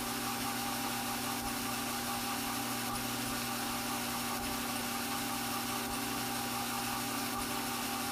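Strauch Mad Batt'r double-wide electric drum carder running at a steady speed: a constant motor hum.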